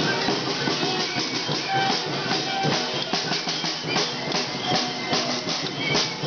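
A hand-held marching drum beaten with a stick in a steady run of strokes.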